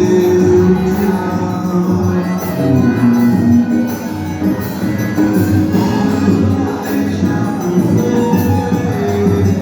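Instrumental band dance music with a steady beat and a jingling high percussion on each beat.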